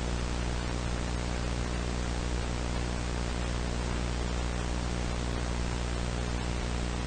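Steady hiss with a low electrical hum underneath, unchanging throughout: the background noise of an old VHS tape recording.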